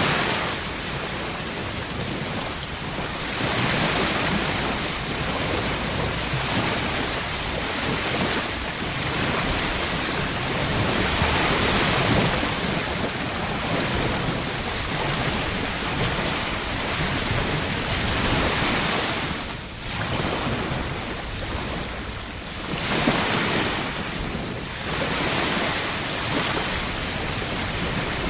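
Ocean surf: waves breaking and washing in, swelling and ebbing every few seconds.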